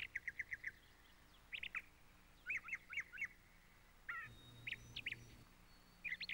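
A small songbird chirping faintly: quick runs of short, high chirps, several notes at a time, repeating with brief pauses between them.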